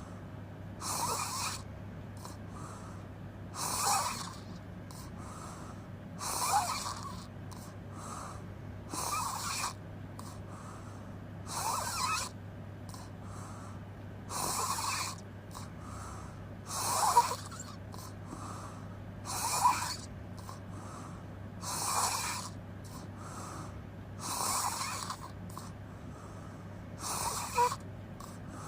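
A person snoring through an open mouth, one snore about every two and a half seconds, with a steady low hum underneath.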